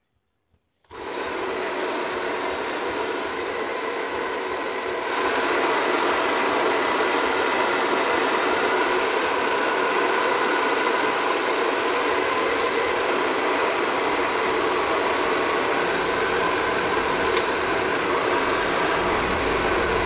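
Chaoba 2000 W hair dryer running, its fan motor blowing with a steady whir that starts about a second in. The whir steps up louder about five seconds in as the dryer goes to its higher setting.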